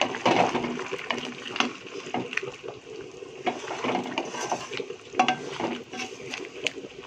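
Wooden spatula stirring chicken pieces in a curry base in a metal kadai, with irregular scrapes and knocks against the pan.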